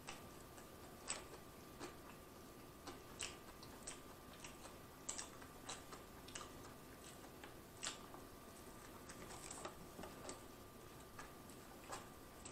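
Faint, wet mouth clicks and smacks of someone chewing a mouthful of burger with the mouth closed, an uneven one or two a second, over a faint steady hum.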